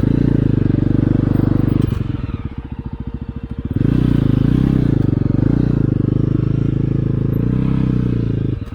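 Single-cylinder adventure motorcycle engine held at high revs under load on a steep, rough off-road climb. It eases off briefly about two seconds in, picks back up, and drops again near the end.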